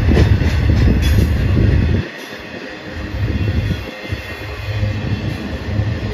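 BNSF double-stack intermodal well cars rolling past, steel wheels running on the rails with a heavy low rumble. The rumble dips about two seconds in and then builds again.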